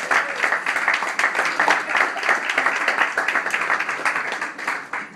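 Applause: many hands clapping quickly and densely, dying away near the end.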